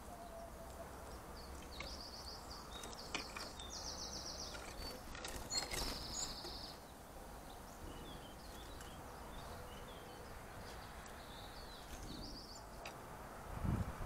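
Small garden songbirds calling: several short bursts of rapid, high-pitched trilling chatter and scattered single chips, with a few light clicks and a dull thump near the end.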